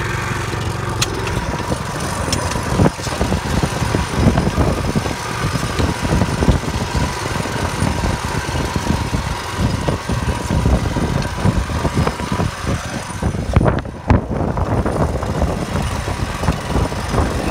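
Two-wheel walking tractor engine running steadily while pulling an inter-row spring-tine cultivator through the soil. The engine sound dips briefly late on.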